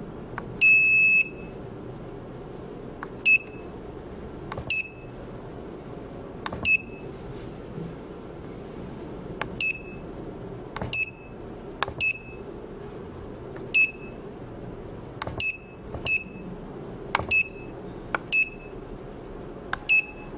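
Touchscreen key beeps from an IPL/SHR beauty machine's control panel as its on-screen buttons are tapped. There are about a dozen short, high beeps at irregular intervals, each with a faint tap, and the first one is held for about half a second. A steady low hum runs underneath.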